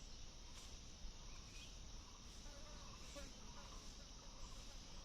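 Insects shrilling in a faint, steady high drone, with soft pulses about once a second.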